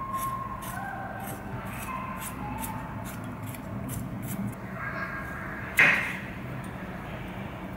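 Hand-held vegetable peeler scraping the skin off a potato in quick repeated strokes, about two to three a second. About six seconds in comes a single sharp, loud knock with a brief ring.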